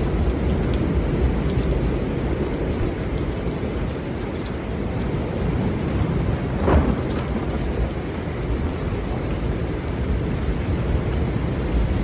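Wind blowing steadily, a deep noise with most of its weight low, swelling briefly louder just past halfway.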